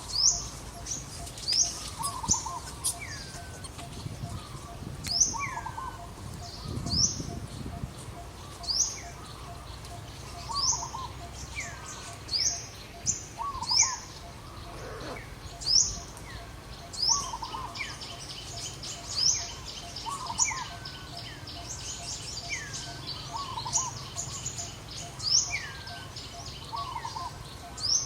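Birds chirping in a regular repeating pattern: a short high upward-sweeping chirp about every two seconds, each with lower falling and warbling notes.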